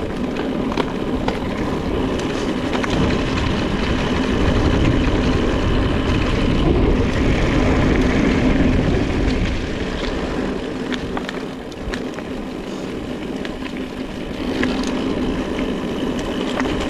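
Wind rushing over the microphone and tyres rolling over rough ground as an electric mountain bike descends fast, with scattered clicks and rattles from the bike.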